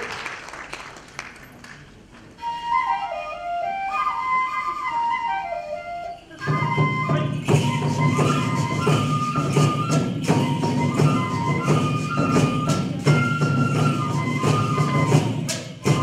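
Applause dying away, then a Japanese bamboo flute (fue) plays a solo melody. About six and a half seconds in, drums and percussion enter with a steady beat under the flute, accompanying the koma odori folk horse dance.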